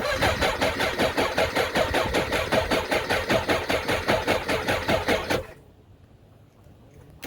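The 2004 Suzuki Bandit 1200's inline-four being turned over by its electric starter with a rhythmic chugging for about five and a half seconds, without firing, then letting go. A second round of cranking begins right at the end. This is a choked cold start at about 1 °F, and the engine won't catch.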